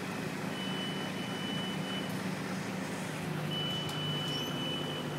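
A high electronic warning beeper from work machinery sounds twice, each long tone lasting about a second and a half, over the steady hum of an idling engine.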